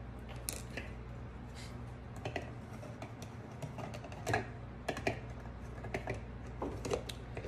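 Irregular plastic clicks and taps from a small Toastmaster food chopper as its bowl and lid are pressed and twisted; the motor does not run because the lid is not locked down.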